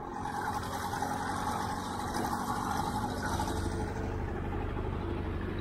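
Steady engine running with the noise of a vehicle on the move: a constant low hum with a steady mid-pitched tone over it, the hum growing louder about three and a half seconds in.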